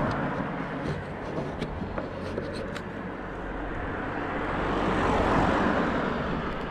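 Tyre and engine noise of cars passing on the road. One is fading away at the start, and another swells up and goes by about five seconds in, over a low wind rumble on the microphone.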